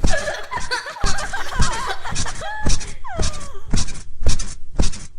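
Bed springs squeaking and the mattress thumping in a steady rhythm, about two bounces a second, as children jump on a bed, with children laughing and squealing over it.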